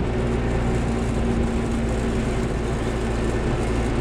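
The single-cylinder two-stroke engine of a Piaggio Vespacar P2, heard from inside the cab while driving, running with a steady drone. The engine is hot and struggling to pull.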